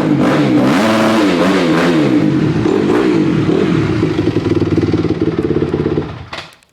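2006 Honda CRF250R's single-cylinder four-stroke engine revving a few times, pitch rising and falling, then running steadily. It stops about six seconds in.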